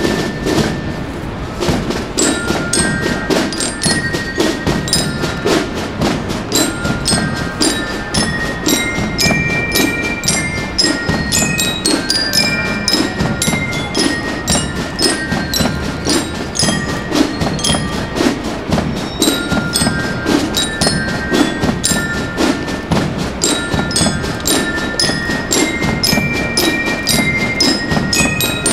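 Massed marching band playing, with bell lyres (marching glockenspiels) ringing the melody in short bright notes over an even drum beat.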